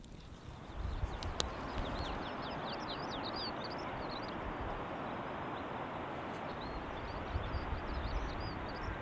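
Small birds chirping, many quick high chirps in rapid succession from about two seconds in, over a steady rushing noise that comes up just under a second in.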